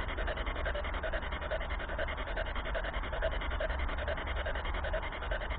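Choppy, rasping radio static from a handheld spirit box sweeping rapidly through stations, over a steady low hum. It is the static in which the investigators listen for a spirit's answer.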